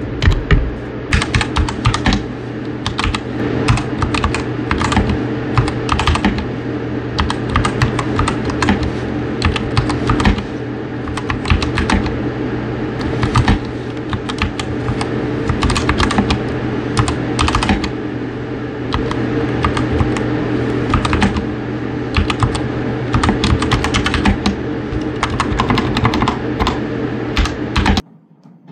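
Typing on a MageGee 60% mechanical keyboard: a fast, uneven run of key clicks and clacks, held up as a sound test of the keyboard, over a steady low hum. The typing starts about a second in and cuts off abruptly near the end.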